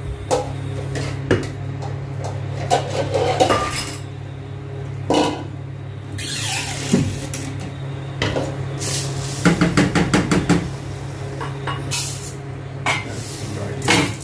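A wooden spoon stirring and knocking inside a metal cooking pot of stew, with scattered clatter and a quick run of scraping strokes about nine seconds in. A steady low hum runs underneath.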